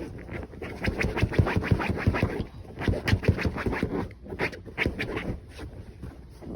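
A dog scratching and digging rapidly at a surface with its paws, in several runs of quick scraping strokes.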